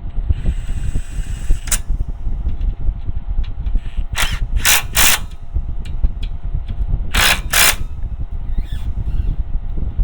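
A power tool run in short bursts, three about four seconds in and two more a little after seven seconds, over a steady low hum. It is fastening the reinstalled sway bar link on the truck's front suspension.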